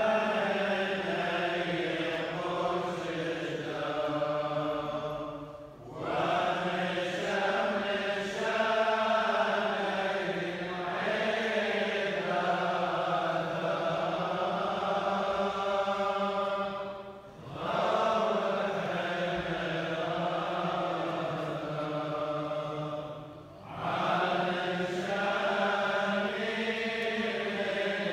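Chaldean priests chanting the funeral prayers, sung in long unaccompanied phrases with three brief breaks for breath.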